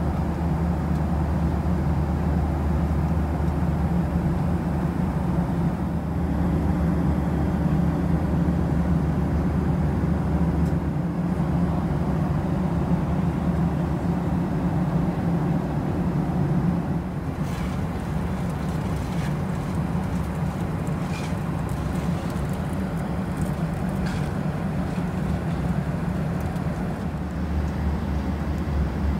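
Steady cabin noise of a Boeing 737-700 in flight: a constant low rumble of engines and airflow heard from inside the cabin. A few faint clicks come in the second half.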